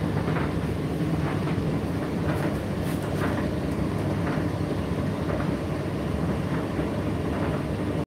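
Indesit IDC8T3 condenser tumble dryer running: a steady hum and rumble of the motor and turning drum, with light irregular knocks.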